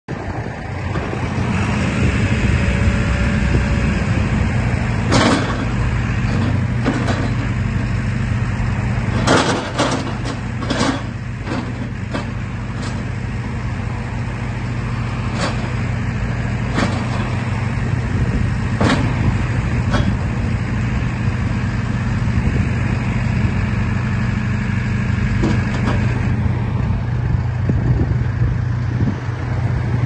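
JCB 3CX Eco backhoe loader's diesel engine running steadily while the front loader arm is raised and lowered on its hydraulics, with a dozen or so sharp knocks scattered through, the loudest cluster a little under halfway in.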